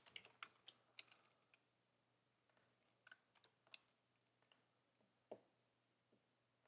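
Faint, scattered clicks from a computer keyboard and mouse, about a dozen separate clicks at an irregular pace, each short and sharp.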